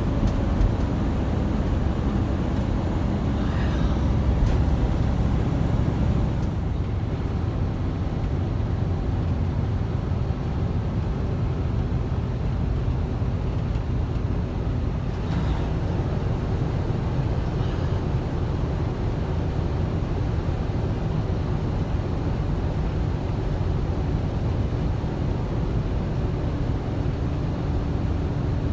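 Steady low rumble of a Freightliner Cascadia semi truck's engine and road noise, heard from inside the cab while it drives along a highway.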